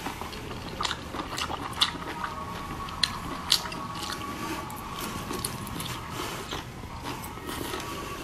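Close-miked eating of braised squid: wet chewing and lip smacking, with irregular sharp sticky clicks as the soft, sauced pieces are pulled apart by hand.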